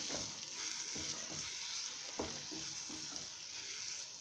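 Onion-tomato masala frying in oil in a pan, giving a steady sizzle, with a few faint knocks.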